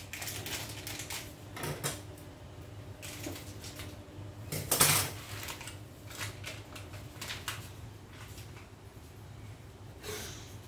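Kitchen handling sounds of making instant coffee: a coffee sachet rustled and torn open and tipped into a cup, with light knocks and clinks of dishes and cutlery on the counter. The loudest is a short, sharp rustle about halfway through.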